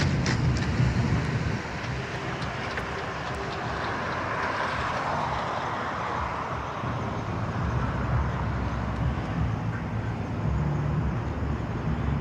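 Street traffic: cars passing on the road, a steady wash of engine and tyre noise that swells in the middle as a vehicle goes by.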